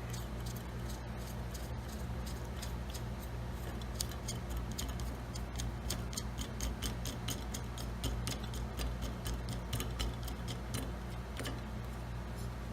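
Small irregular plastic clicks and ticks, several a second, as nuts are spun by hand down the threaded plastic nipples of a vacuum breaker, over a steady low hum.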